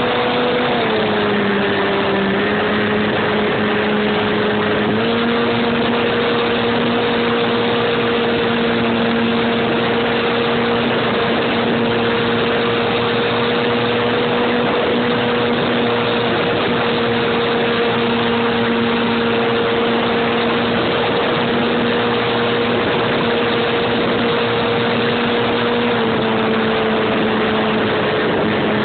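RC airplane's motor and propeller heard from the camera on board the plane: a steady droning tone over a rush of noise. The pitch dips about a second in, climbs back about five seconds in and eases down slightly near the end as the throttle changes.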